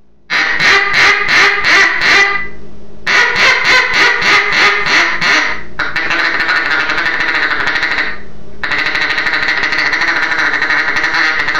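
Homemade single-reed duck call, turned from oak hobby wood, being blown. Two runs of quacks at about three a second, then two long stretches of fast, even chatter with a short break between them.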